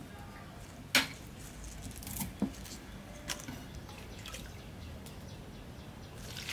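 Water dripping and a few light clicks and knocks of a plastic dipper at a glazed clay water jar, with one sharp knock about a second in.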